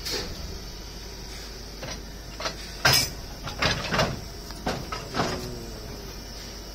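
A run of sharp metal clanks and knocks from railway coupling gear between a passenger coach and a locomotive as a shunter works at the coupler and hoses, about eight in all, the loudest about three seconds in.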